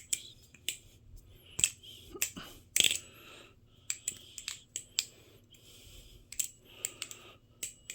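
Aluminium channel-construction balisong (butterfly knife) being flipped in the hand: an uneven run of sharp metallic clicks as the handles swing and strike, some in quick pairs, with a soft hiss between them.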